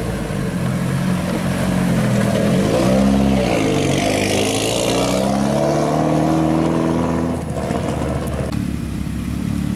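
Mitsubishi Lancer rally car's engine revving as it pulls away past the camera, the pitch climbing, dipping and climbing again in steps, with tyres hissing on gravel along the way. Near the end it gives way abruptly to a lower, steadier engine note.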